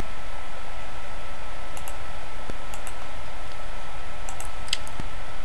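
A handful of computer mouse clicks, several heard as quick pairs of ticks (button press and release), over a steady background hiss with a faint thin tone.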